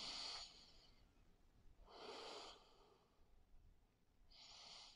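A person breathing slowly and faintly through the nose: three soft breaths about two seconds apart.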